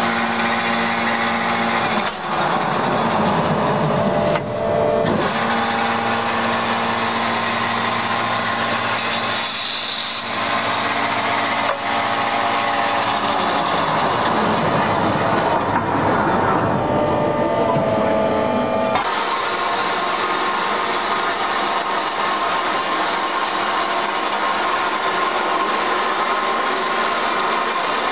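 Behringer industrial metal-cutting bandsaw line running: a steady machine hum and whine whose pitch changes several times in the first twenty seconds, then holds steady.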